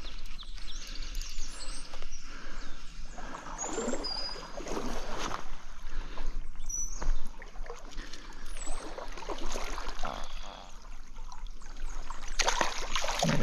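Stream water rushing, with irregular splashing from a hooked brown trout being fought in the water. The splashing grows much louder near the end.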